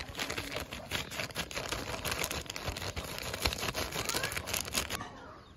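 Plastic Kurkure snack packet crinkling as crushed Kurkure crumbs pour out of it onto a steel plate. The crackling stops abruptly about five seconds in.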